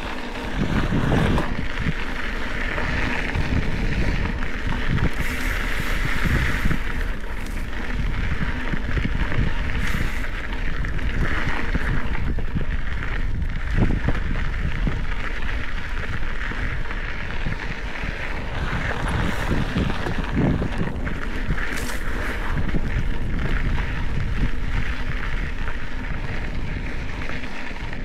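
Wind noise on the microphone over a Specialized Epic 8 Evo mountain bike rolling along a dirt and gravel trail: steady tyre and trail noise with scattered knocks and rattles as it rides over bumps.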